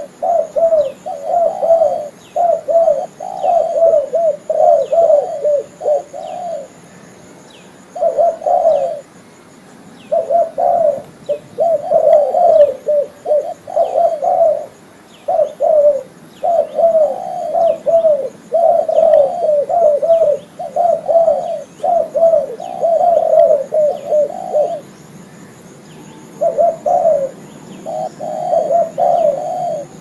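Spotted dove (tekukur) cooing in quick repeated phrases, in runs broken by a few short pauses, with faint high chirps in the background.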